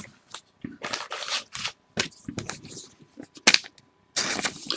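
Trading cards and their plastic packaging being handled: short rustles with several sharp clicks, the loudest about three and a half seconds in.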